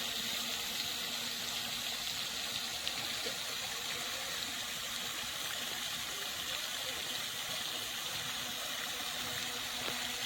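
Small electric RC tugboat running on the water: a steady watery hiss with a faint low hum.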